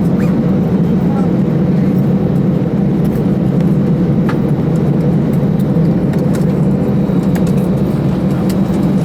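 Steady low rumble inside the cabin of an Airbus A319 taxiing to the gate, its engines at idle, with a few faint clicks.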